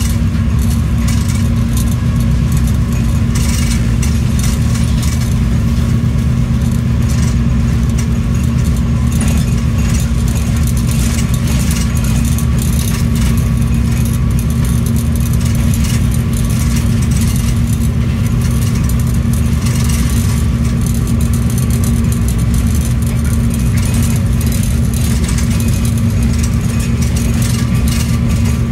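Steady drone of a diesel locomotive's engine heard from inside the cab at about 80 km/h, with a strong low hum and the faint irregular clicking of wheels over the track.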